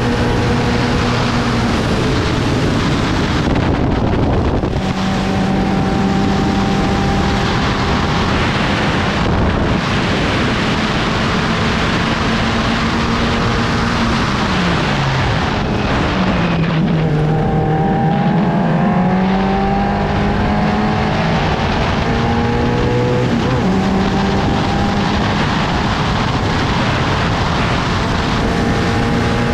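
750 Formula race car's engine running hard, heard from on board over a rush of wind. About fourteen seconds in the engine note drops as the car slows for a corner, then climbs again through the gears as it accelerates away, with a gear change about nine seconds later.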